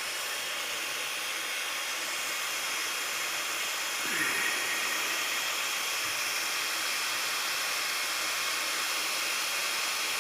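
3D printer's cooling fans running with a steady, even whir and hiss, with a brief faint sound about four seconds in.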